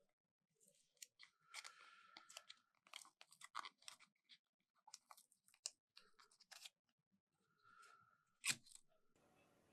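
Faint clicks, scrapes and rubbing of small plastic parts as a new battery is fitted into an opened car key remote, with one sharper click about eight and a half seconds in.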